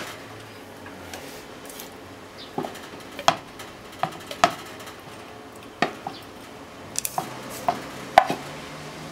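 Wooden chopsticks tapping and scraping against a frying pan and ceramic bowl as stir-fried bean sprouts and pork are pushed out of the pan. The sound is a string of sharp, irregular clicks, loudest near the end.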